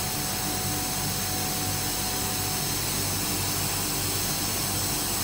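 Steady running noise of air compressor machinery, a constant hum under a broad hiss.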